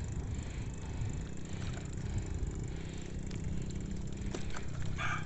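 Steady low rumble of wind and road noise while riding a bicycle on concrete, then a rooster starts crowing near the end.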